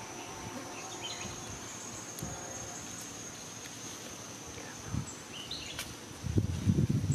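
Insects droning steadily at a high pitch, with a few short high chirps. Near the end, a louder burst of low rustling thumps.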